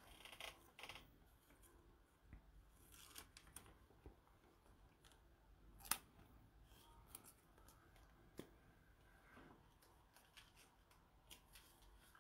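Near silence with faint, scattered rustles and clicks from a trading card being handled in nitrile-gloved hands, and one sharper click about six seconds in.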